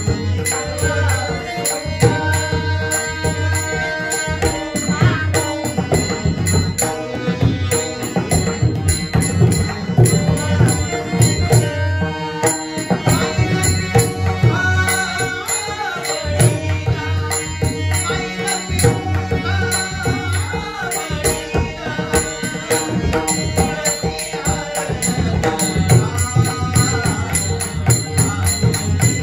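Marathi devotional bhajan: a sung abhang melody over pakhawaj drumming and a steady, even rhythm of percussion strokes, with held drone tones beneath.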